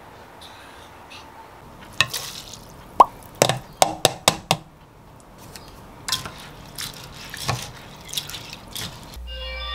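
Clinks and knocks of a stainless-steel rice-cooker inner pot and its lid being handled, one with a short metallic ring, followed by softer scraping of a rice paddle in the rice. A steady electronic tone starts near the end.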